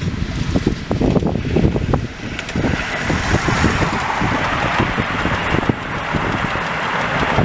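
Miniature railway goods train passing close by: a string of small open wagons and a brake van rolling over the track, with knocking and a rolling hiss that comes in about two and a half seconds in as the wagons go past. Wind buffets the microphone.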